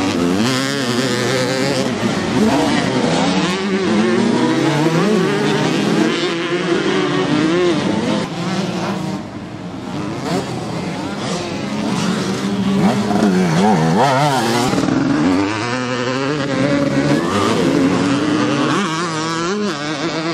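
Motocross bike engines revving hard as riders race past, several engine notes overlapping and rising and falling with the throttle. The sound dips briefly about halfway through.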